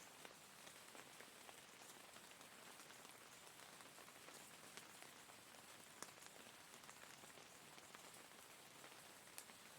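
Faint, steady rain: an even hiss with scattered individual drops ticking, one sharper drop about six seconds in.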